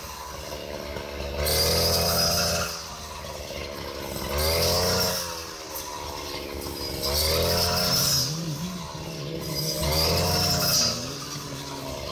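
Petrol brush cutter cutting standing wheat: the engine revs up four times, about every two and a half seconds, as the blade sweeps into the stalks, and falls back to a lower running speed between sweeps.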